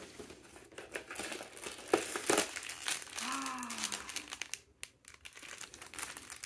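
Clear plastic bag crinkling and crackling as it is handled and pulled from a cardboard craft box, with a louder cluster of crackles about two seconds in.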